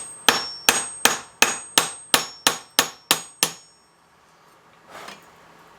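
Hand hammer striking a flat chisel to score a centre line into a steel tong jaw: about ten sharp, even blows, roughly three a second, each with a high metallic ring, stopping about three and a half seconds in. A single fainter knock follows near the end.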